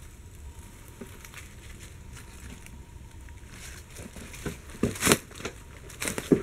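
Footsteps crunching through dry leaf litter and twigs over a steady low rumble, with a run of sharp, loud crackles in the last two seconds.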